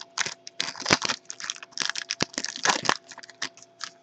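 Trading-card pack wrapper being torn open and crinkled by hand, a dense run of irregular crackles that thins out near the end.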